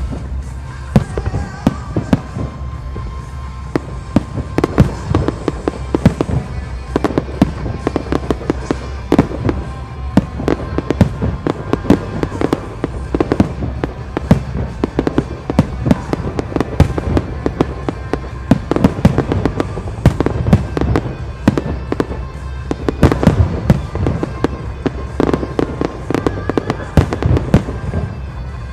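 Large professional fireworks display: shells bursting in rapid, irregular bangs, several a second, over a continuous low rumble.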